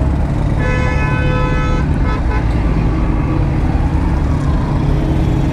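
A vehicle horn blares for about a second near the start, followed by a couple of short toots. Under it runs the steady low rumble of engines in slow, heavy road traffic.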